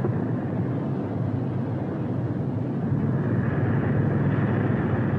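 Steady drone of a Boeing B-17 Flying Fortress's Wright Cyclone radial engines in flight, turning brighter and hissier about three seconds in.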